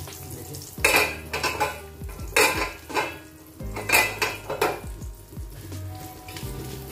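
Metal clanking and rattling as a stainless steel pan lid is set down on the gas stove and a steel spatula is handled, about four sharp ringing clanks, with a fried egg sizzling faintly in the iron pan between them.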